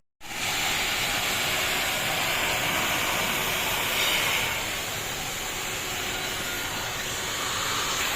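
ADS 328 HEPA industrial vacuum cleaner running, a steady suction hiss and motor whir that dips slightly about halfway through.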